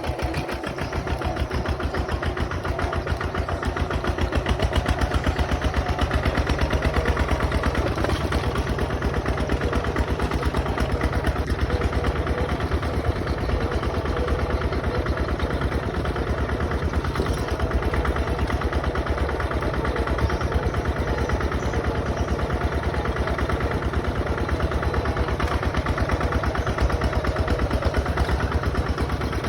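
Bulldozer's diesel engine running steadily, a fast even chugging with a strong low rumble.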